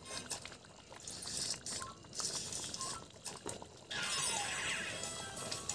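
A metal ladle scooping thick chicken curry out of a steel kadai into a steel bowl: wet pouring and light metal clinks. A steady hiss joins about four seconds in.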